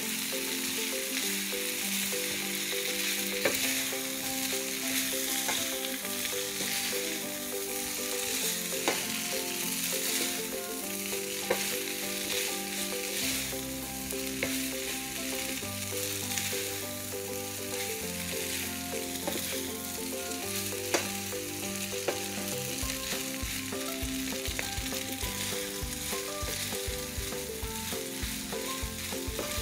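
Chow mein noodles, chicken and vegetables sizzling in a hot pan as they are stirred and tossed with a wooden spatula, with occasional light knocks of the spatula against the pan.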